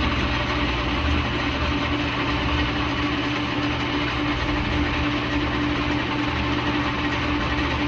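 Vintage Lehmann engine lathe running at steady speed during a single-point threading pass on a pipe: an even mechanical hum with one steady mid-pitched tone.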